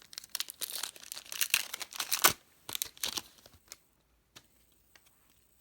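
The wrapper of an NFL trading card pack being torn open and crinkled, a busy rustling for about two and a half seconds, followed by a few light clicks as it is handled.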